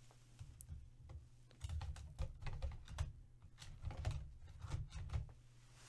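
Typing on a computer keyboard: irregular runs of keystrokes with soft knocks on the desk.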